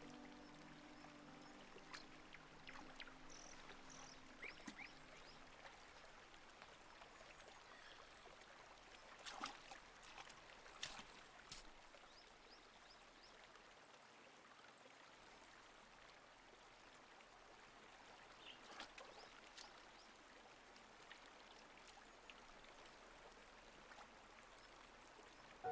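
Faint, steady trickle of a shallow rocky stream, close to silence, with a few brief clicks, the clearest about ten seconds in.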